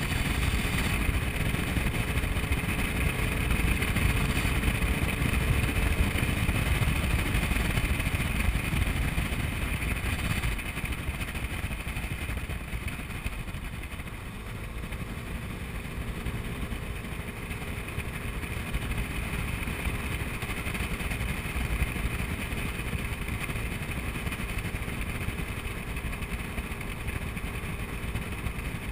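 Honda Ruckus scooter's 49cc single-cylinder four-stroke engine running at a steady road speed, under heavy wind rush on the microphone. The wind noise eases about ten seconds in.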